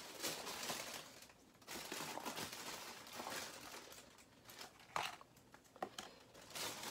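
Hands cracking and peeling the shells of mala spicy crayfish: irregular crinkling and crackling, with a couple of sharper cracks late on.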